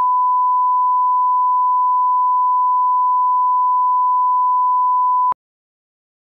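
Steady, pure single-pitch reference test tone of the kind played with TV colour bars, cutting off abruptly about five seconds in.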